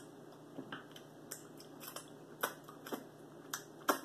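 A person chewing food close to the microphone: a run of short, irregular mouth clicks and smacks, the loudest near the end.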